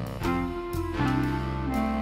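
Instrumental background music with held melody notes changing every half second or so.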